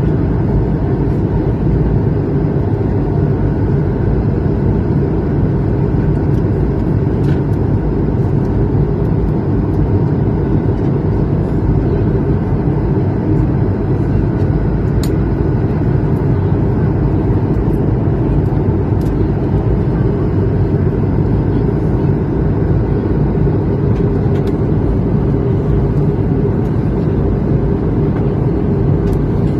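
Steady low drone of aircraft cabin noise from the engines and airflow while in flight.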